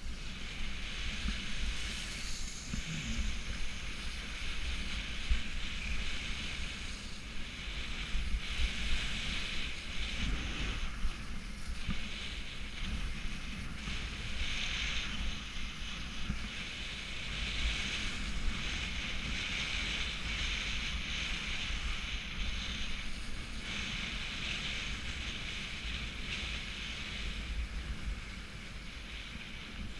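Skis sliding and carving through wet, heavy spring slush, a hiss that swells and fades with the turns, over wind rumble on the microphone.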